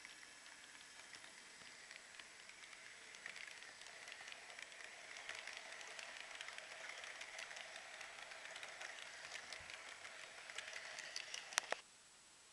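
Model freight train wagons rolling past on model railway track, the wheels making a quiet, crackly clatter of many small clicks that grows louder. A sharp click near the end, where the recording cuts to another view, then only a low hiss.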